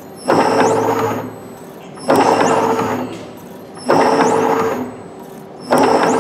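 Automatic rosary chain-making machine running in steady cycles. Four times, about every 1.8 seconds, a burst of mechanical clatter starts suddenly with a short rising whine, lasts about a second and fades to a quieter running hum.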